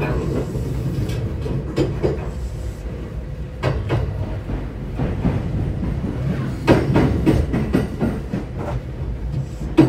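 Running sound inside a JR West San'yō Line local electric train under way: a steady low rumble from the wheels and track, with a few sharp knocks and rattles now and then.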